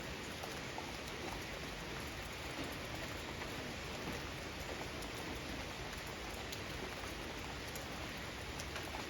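Steady rain falling: an even hiss with many small scattered drop ticks.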